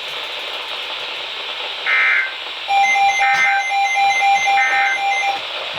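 Weather radio hiss, then the Emergency Alert System end-of-message data bursts: three short two-tone warbling bursts about a second and a half apart, marking the end of the flood warning. From about three seconds in they are overlapped by a steady tone with pulsing higher beeps.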